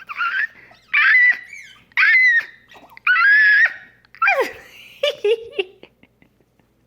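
A woman's playful nonsense vocal sounds: a run of short, very high-pitched squeaks about a second apart, one sliding down in pitch about four seconds in into a lower warbling call.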